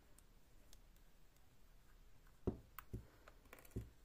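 Quiet handling sounds of crocheting by hand: three soft knocks in the second half, with a few light clicks of the crochet hook and yarn in between.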